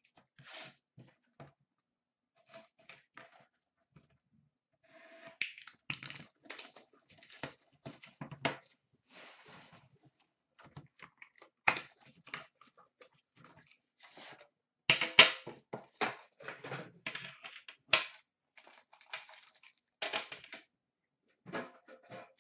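Upper Deck Premier hockey card box being opened and its contents handled. The cardboard is torn and creased with scattered sharp clicks, snaps and rustles, sparse at first and busier and louder from about five seconds in.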